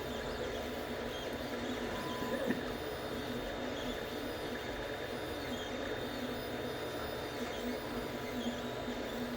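Anycubic Chiron 3D printer running a print: a steady mechanical hum with short whines that rise and fall in pitch as the print head moves.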